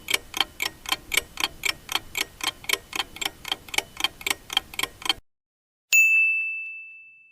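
Countdown-timer sound effect: quick, even clock ticking that stops about five seconds in, followed by a single bell ding that rings out and fades, marking that the time to answer is up.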